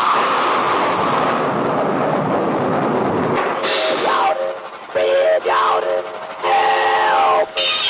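Cartoon steam-train sound effects: a long hiss, then three pitched whistle toots starting about three and a half seconds in, the last one held longest.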